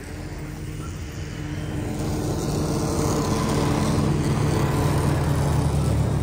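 A motor vehicle's engine running with a low, steady drone, growing louder over the first three seconds and then holding level.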